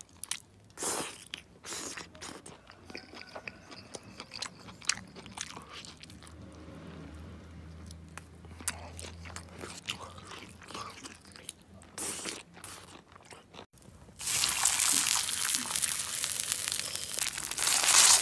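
Close-up eating: biting into and chewing spicy grilled food, meat and then squid, with irregular crunches and wet chewing. About fourteen seconds in, a loud steady sizzling hiss takes over: food frying on a hot black stone over a wood fire.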